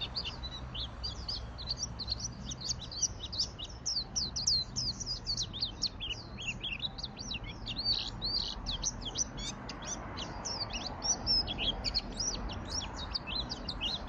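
White-eye (pleci) in full, continuous song: a rapid, unbroken stream of short high chirps and twittering trills with no pauses.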